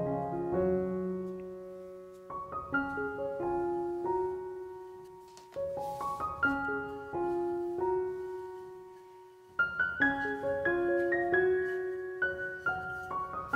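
Background solo piano music: a melody in short phrases, each note dying away, with the music fading between phrases before it starts again.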